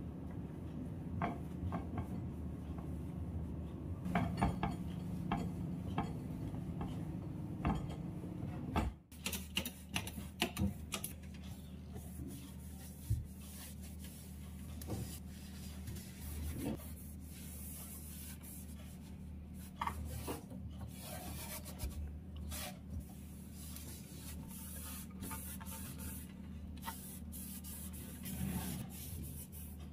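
A cloth rubbing and wiping kitchen cabinet surfaces, with scattered light knocks. After a break about nine seconds in, the cloth wipes a stainless steel wire drawer basket, with small clinks and ticks of the metal rack.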